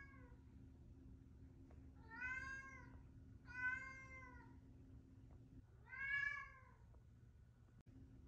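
Ragdoll cat meowing three times, each meow just under a second long and rising then falling in pitch.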